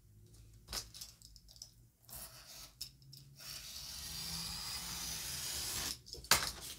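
A craft blade drawn slowly along a metal ruler, slicing a strip of paper with a long scratchy hiss that grows louder for about four seconds. A sharp click follows near the end.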